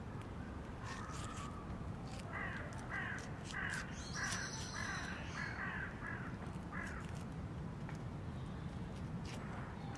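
A crow cawing about eight times in a quick, even run, starting a couple of seconds in, over a steady low background rumble. Light clicks and rustles come from green plant stems being handled close by.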